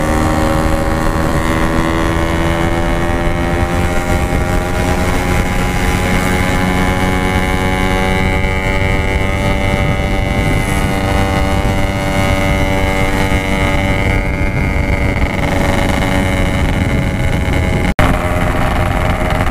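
Yamaha RX-King 135cc two-stroke single-cylinder motorcycle engine with a Packing Power exhaust, running under way. Its pitch climbs steadily over the first several seconds as it gathers speed, then holds. Wind noise on the microphone.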